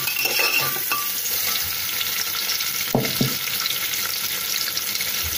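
Sliced onions sizzling in hot oil in a pressure cooker while a steel spoon stirs them, scraping against the pot. Two quick knocks about three seconds in.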